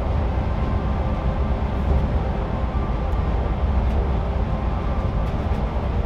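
Steady road and engine rumble heard from inside a vehicle moving at highway speed.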